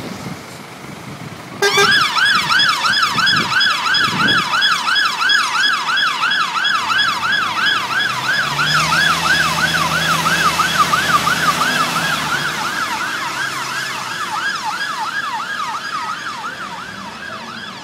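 Fire engine siren switching on suddenly about two seconds in, sounding a fast up-and-down yelp about four sweeps a second. The truck's engine note is heard under it around the middle. The siren gradually fades as the appliance drives away.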